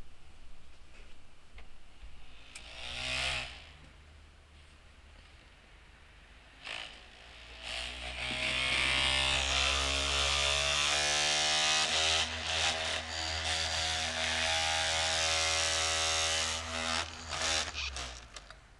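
Computer's CD drive spinning an old audio CD that iTunes won't play. There is a brief whir about three seconds in, then from about eight seconds a loud, steady whirring drone for some ten seconds, which dies away near the end.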